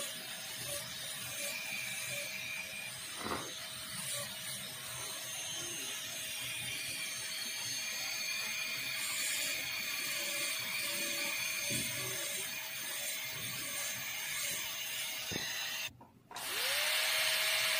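High-speed dental handpiece running with a steady whine and hiss, its small fissure bur cutting the plastic tooth of a typodont. Near the end it cuts out briefly, then comes back with a rising whine as it spins up again, louder than before.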